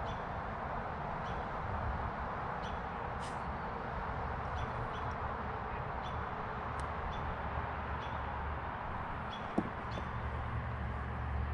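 Steady outdoor background hiss with faint, scattered bird chirps. A single sharp click comes about nine and a half seconds in, and a low rumble starts near the end.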